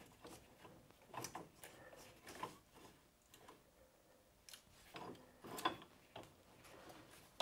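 Faint, scattered clicks and light knocks as the plates of an internal coil-spring compressor are fitted by hand into a car's rear coil spring, a few taps early on and a small cluster about five seconds in.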